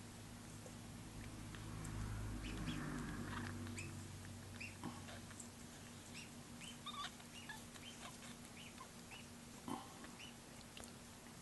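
Kitten sucking at a nursing bottle's nipple: small irregular wet smacking clicks, over a steady low hum. A low rumble swells and fades about two seconds in.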